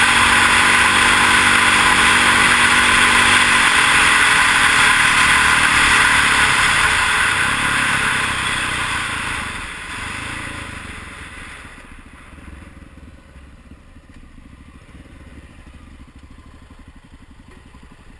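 Honda XR650 single-cylinder dual-sport engine running at speed, with wind and tyre noise. About three and a half seconds in, the throttle is backed off and the bike slows over several seconds, the noise dying away. It settles to a quiet idle for the last few seconds.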